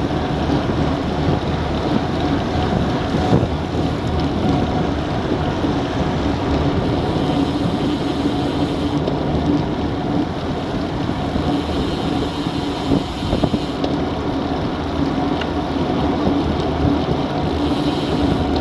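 Steady wind rushing over a bike-mounted Garmin VIRB action camera's microphone while cycling at about 30–37 km/h, mixed with road noise from the moving bikes.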